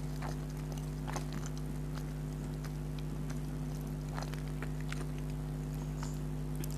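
Close-up eating sounds of instant noodles: scattered wet mouth clicks and smacks from chewing, over a steady low electrical hum.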